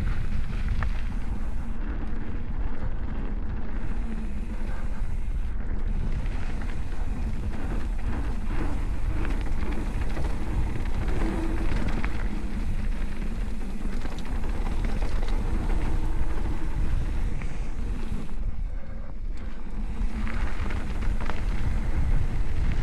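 Wind rushing over the microphone with the rumble and rattle of a mountain bike riding down a dirt trail, full of small knocks from the bumps; it eases briefly near the end.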